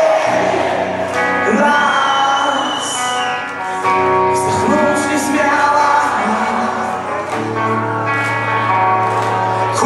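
Live band music with a male voice singing over sustained chords, a high held note about two seconds in and a steady low note in the last couple of seconds.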